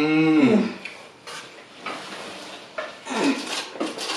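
A short voice sound that rises and falls in pitch at the start, then paper napkins rustling and crumpling as sticky hands are wiped, with light clatter of dishes and cutlery.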